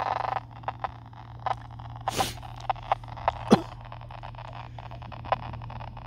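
Sound of an analog TV set receiving a weak distant signal. The programme audio cuts out about half a second in, leaving a steady low hum with scattered clicks and crackles. There is a short hiss-like burst about two seconds in and a sharp click a second and a half later.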